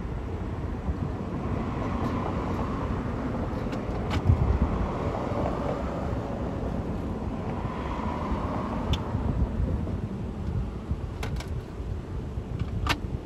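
Steady low rumble of road traffic, with a vehicle swelling past about two seconds in and another about eight seconds in; a few light clicks.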